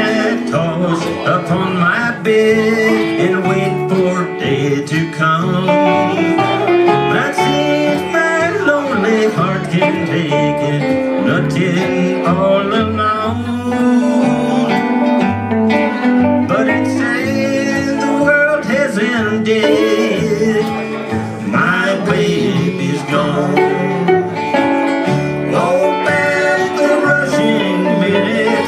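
Live acoustic trio playing an instrumental break: an archtop electric guitar taking the lead over strummed acoustic guitar and a plucked upright double bass.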